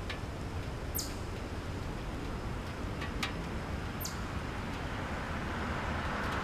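Outdoor wind rumbling on the camera microphone, with two short, high chirps that fall in pitch, about three seconds apart, and a few faint clicks.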